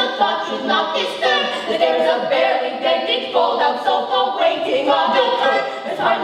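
A small ensemble of male and female voices singing a chorus together in harmony, seemingly unaccompanied.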